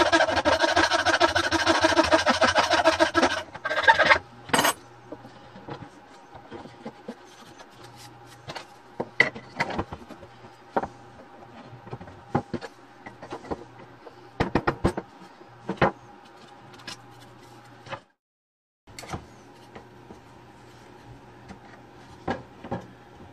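A loud, rough, continuous sound for the first three and a half seconds, then thin plywood kit parts being handled on a workbench: scattered light wooden clicks, taps and rubbing as the pieces are picked up, set down and fitted together.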